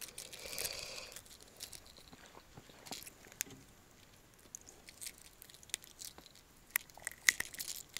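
Faint scattered clicks and rustles of a small pike and its lure being handled up close, with a soft rustle in the first second and a few sharper clicks near the end.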